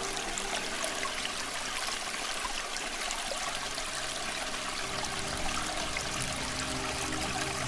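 Small brook trickling and running steadily.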